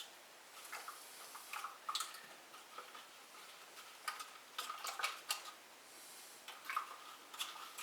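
Faint, scattered clicks and light clinks of small hard objects being handled, as a utensil is picked up to stir wood ash and water in a sprayer bottle.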